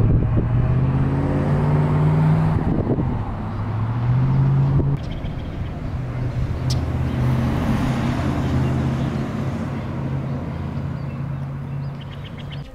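A motor vehicle's engine running, its pitch climbing and dropping twice in the first five seconds, then holding fairly steady.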